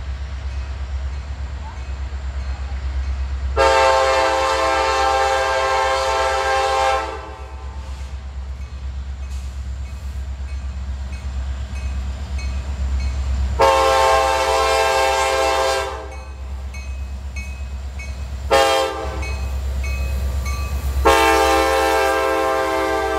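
CSX diesel locomotives leading a coal train sound their multi-tone air horn in the grade-crossing pattern: two long blasts, a short one, then a final long one near the end, signalling the train's approach to a road crossing. The steady low rumble of the diesel engines runs underneath as the train draws near.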